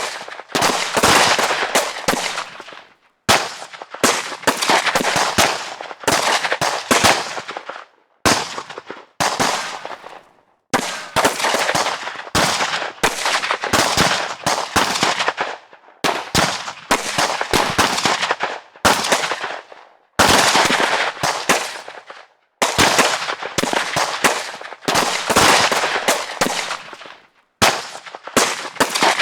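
Rapid gunfire in repeated bursts of a few seconds each, many shots close together. Each burst fades out before a brief pause, and the next burst begins.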